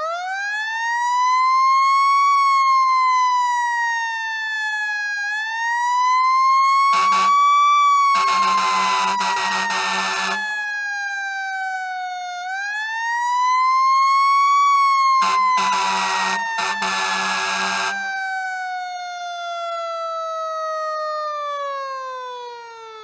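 Fire truck siren wailing, slowly rising and falling in long sweeps. Twice it is cut across by horn blasts, each a short toot followed by a long blast of two to three seconds. Near the end the siren pitch falls away steadily.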